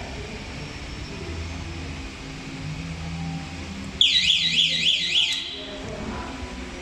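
Electronic alarm sounding for about a second and a half, a loud warbling tone sweeping up and down about three times a second, over a steady low machine hum.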